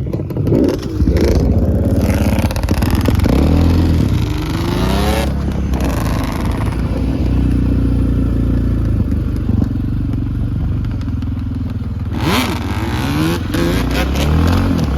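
Yamaha Banshee ATV's twin-cylinder two-stroke engine running under throttle, revving up and rising in pitch several times. It holds a steadier note between about six and twelve seconds in.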